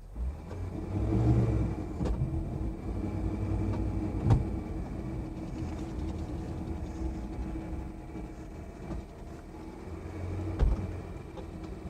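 Car engine running steadily, with a low rumble, a sharp knock about four seconds in and another near the end.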